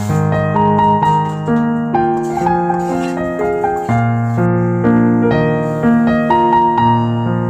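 Background piano music, a melody over chords with notes changing about every half second.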